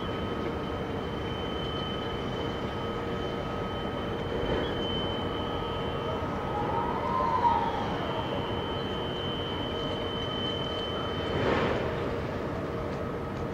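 Container gantry crane at work: a steady electric whine from its drives over a low machine rumble, with a short rising-and-falling tone near the middle and a brief clank near the end as the spreader lowers a container into the ship's hold.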